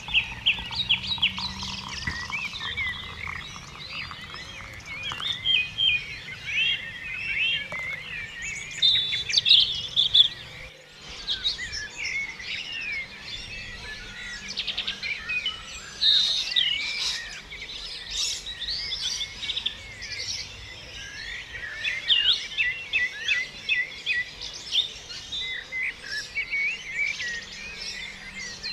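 A busy chorus of many birds chirping and calling over one another, with short rapid warbles and whistles overlapping throughout; the sound cuts out for an instant about eleven seconds in.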